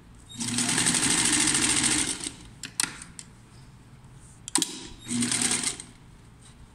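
Electric sewing machine stitching a seam in two short runs, the first about two seconds long and the second under a second. A few sharp clicks come between the runs.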